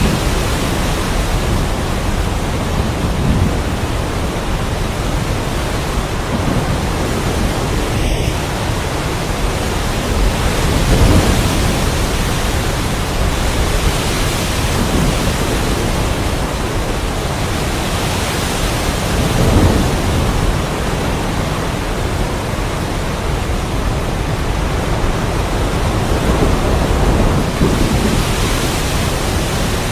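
Heavy rain pouring steadily, with low rolls of thunder swelling about eleven seconds in and again near twenty seconds.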